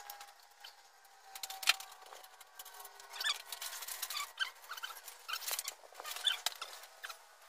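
Plastic wrapping and packing material rustling and crinkling as it is handled, with scattered sharp clicks and snaps; the loudest snap comes about a second and a half in, and the crinkling gets busier from about three seconds in.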